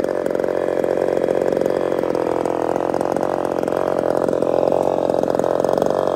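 Zenoah RedMax G2500-clone top-handle two-stroke chainsaw idling steadily and evenly. It is a clean, stable idle that shows the saw's long-standing idle problem has been fixed after several modifications.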